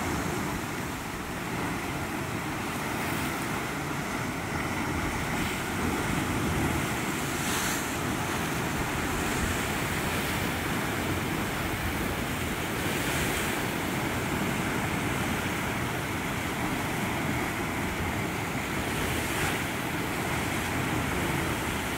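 Sea surf breaking and surging against basalt column cliffs: a steady, continuous rush of churning water.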